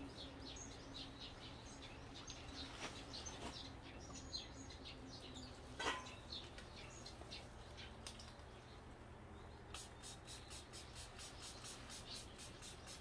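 Faint chirping of small birds, with a couple of light knocks, the sharper one about six seconds in. About ten seconds in, a quick, even rubbing starts, about three strokes a second.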